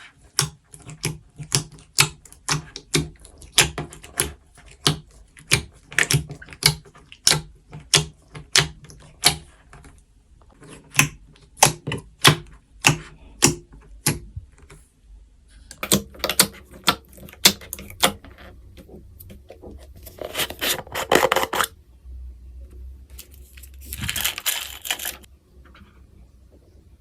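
Slime being pressed and poked by hand, making sharp clicking pops about two a second, then denser crackling, with two longer squishing, crackling stretches near the end.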